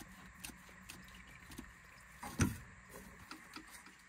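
Faint clicks and handling noise as a hand turns the red plastic radiator drain plug closed, with one louder rub about two and a half seconds in.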